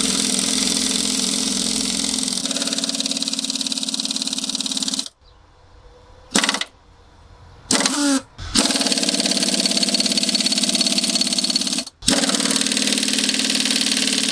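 Ingersoll Rand 2131 half-inch pneumatic impact wrench hammering on a stubborn nut in long runs: one run of about five seconds, a pause with three short blips, then two more long runs with a short break between them. The nut is not breaking loose.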